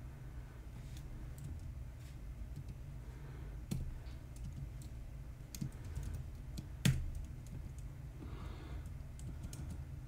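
Typing on a computer keyboard: scattered individual key clicks, with two louder key strikes, one about a third of the way through and one about two-thirds through, over a low steady hum.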